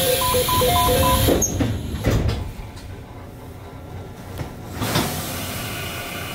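Train's sliding doors closing: a hiss of air with a short repeating two-tone chime, then a few knocks as the doors shut, followed by steady idle noise from the stationary train.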